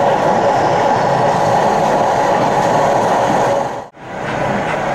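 Model railway locomotives running on the layout's track: a steady whir of motors and gears with the wheels running on the rails. It cuts out abruptly about four seconds in and comes back slightly quieter.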